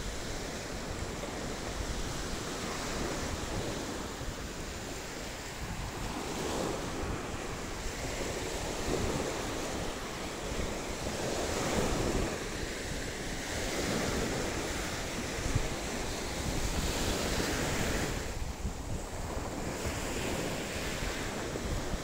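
Sea waves breaking and washing up the beach, rising and falling in swells every few seconds, with wind rumbling on the microphone.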